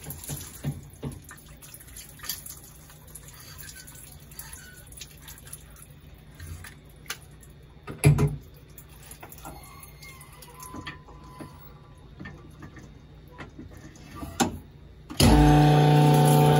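Honing oil trickling from the hose into the cylinder bore, with scattered clicks and a single thump about eight seconds in. About fifteen seconds in, the Sunnen CV616 vertical honing machine starts with a loud, steady hum.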